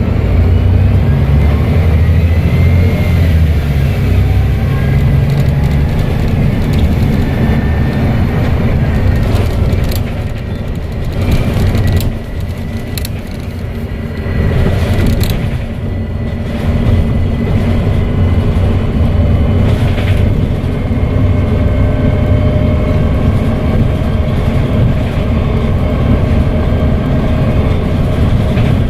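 Volvo B7TL bus's turbocharged six-cylinder diesel engine running under load, with a turbo whistle that rises in pitch over the first few seconds and a steady whistle later. The engine eases off for several seconds around the middle, with a few sharp knocks, then pulls again.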